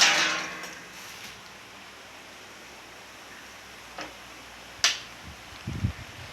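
A sharp clank that rings out for about a second at the start, then quiet, two sharp clicks and a short cluster of low knocks near the end.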